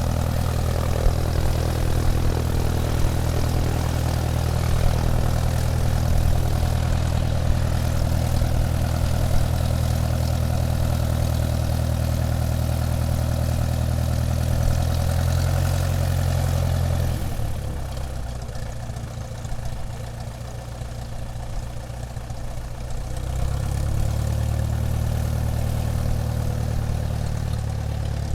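Airplane engines running while the aircraft taxis: a steady low drone that eases off a little past the middle for several seconds, then comes back up.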